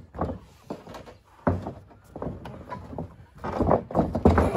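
Thuds of wrestlers' bodies hitting a wrestling ring's mat and ropes. There is one heavy thump about a second and a half in and a quicker run of knocks and scuffling near the end.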